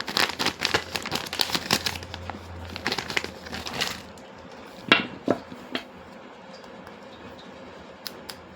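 Plastic toy packaging being handled, crinkling and rustling for about four seconds, followed by a few separate light knocks of small hard objects and two faint clicks near the end.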